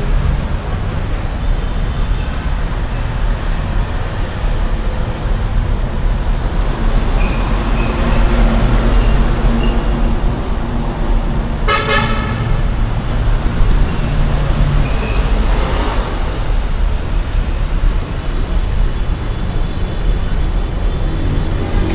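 City street traffic, engines running in a steady rumble, with one short vehicle horn toot about halfway through.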